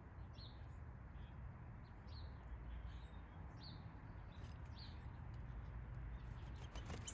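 Small backyard birds giving short, high chirps, about five scattered through the stretch roughly a second apart, over a steady low background rumble.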